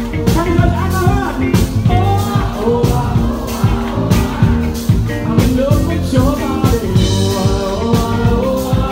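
Live band playing an upbeat rock-style song: a woman singing over electric guitar, keyboard and a steady beat.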